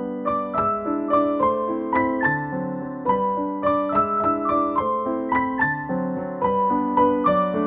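Background piano music: a gentle melody of evenly paced single notes and chords.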